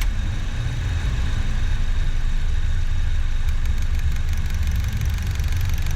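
Honda HR-V engine idling; about three and a half seconds in, a fast ticking from the BRC Sequent 32 CNG injector rail starts as the engine changes over from petrol to natural gas. This injector-rail noise is the common complaint with this kit, and it tends to grow louder with age.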